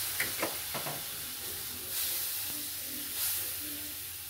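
Milk sizzling in a hot pan while a silicone spatula stirs through it, with a few quick scraping strokes in the first second.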